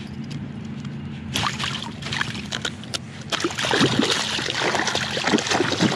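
A northern snakehead held in a fish grip thrashing and rolling in shallow swamp water, a death roll. A few splashes come about a second and a half in, then heavy, continuous splashing from about halfway on.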